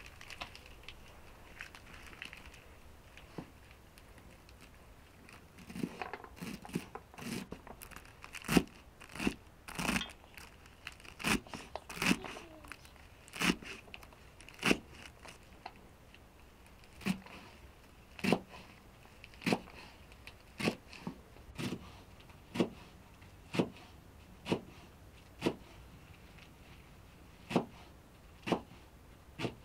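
A series of sharp knocks or cuts: a quiet start, then irregular clustered strikes, settling into steady single strokes about once a second.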